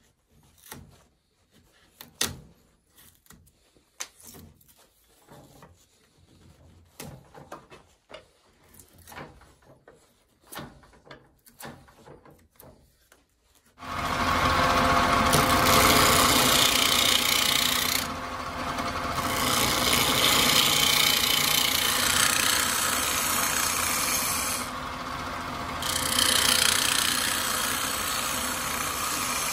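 A knife shaving the rim of a stationary wooden bowl by hand, heard as faint scattered scrapes and clicks. About halfway through, a wood lathe runs and a gouge cuts inside the spinning bowl with a loud, steady hiss of shavings. The cutting breaks off briefly twice while the lathe keeps turning.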